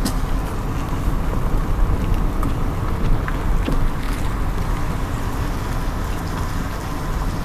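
Steady road and engine noise of a moving car, heard from inside the cabin, with a few faint ticks.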